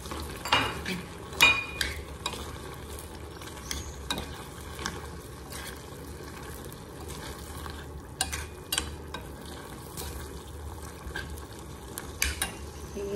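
Metal spoon stirring thick pork panaeng curry and basil leaves in a stainless steel pot, scraping and clicking against the pot now and then over a steady low hiss. The sharpest clicks come about half a second and a second and a half in.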